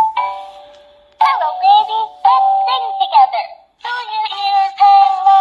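Peek-A-Boo Elephant plush toy singing a nursery song in a high-pitched recorded voice through its built-in speaker. Short sung phrases come with brief breaks, and there is one short pause a little after the middle.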